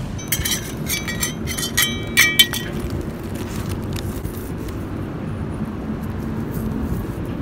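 Hard pieces of pottery and shingle clinking together as they are handled: a quick run of sharp, ringing clinks over the first two or three seconds, the loudest about two seconds in. After that only a steady low background rush remains.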